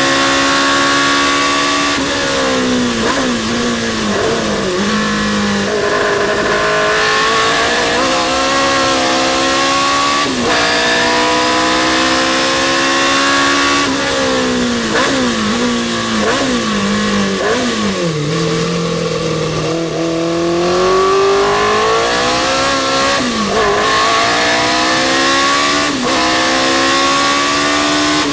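Historic sports racing car engine at full throttle, its pitch rising steadily through each gear. Several times it drops sharply with quick throttle blips on downshifts under braking, then pulls hard again.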